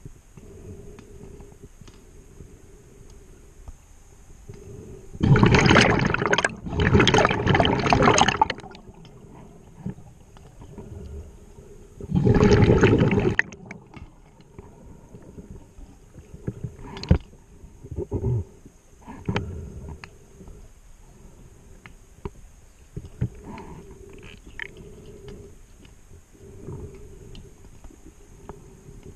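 Scuba regulator exhaust bubbles from a diver's exhalations underwater: a long rush of bubbling about five to eight seconds in, broken into three, and a shorter one about twelve seconds in, with faint clicks and knocks in between.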